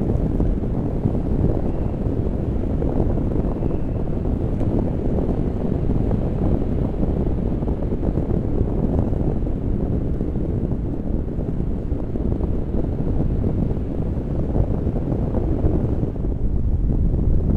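Steady wind rushing and buffeting against the microphone, the airflow of a paraglider in flight.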